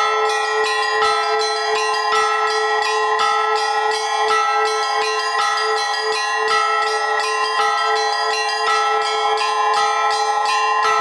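Russian Orthodox church bells ringing a peal in a six-beat (6/8) rhythm, in the manner of the Svyatogorsk Lavra: small high bells struck rapidly over the sustained hum of larger bells, the pattern repeating about once a second.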